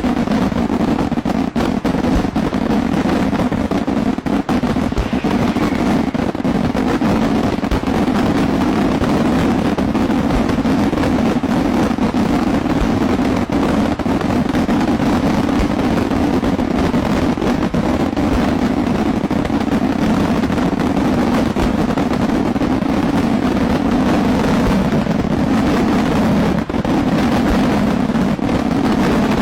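Daylight fireworks going off in a dense, unbroken barrage of crackles and bangs.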